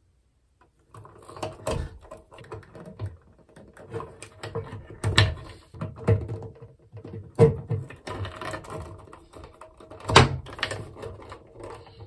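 Hand wire stripper working on electrical wires: rustling and scraping of wire and insulation, with a sharp snip every couple of seconds as the jaws close and pull the insulation off.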